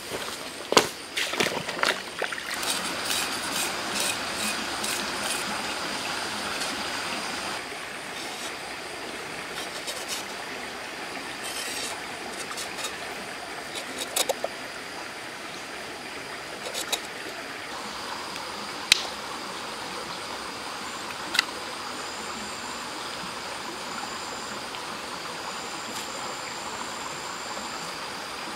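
Steady rush like a running stream, with a few sharp knocks and rustles in the first two seconds and scattered single clicks later. A faint, thin, high steady tone runs underneath.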